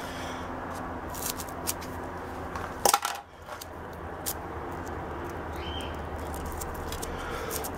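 Hands handling small parts on a bench: scattered light clicks and rustles, with a sharper clatter of clicks about three seconds in, over a steady low hum.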